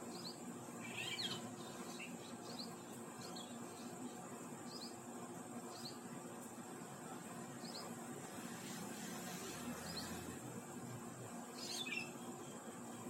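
Birds calling: short, high chirps repeat about once a second, with two louder falling calls, about a second in and near the end, over a steady high-pitched hum.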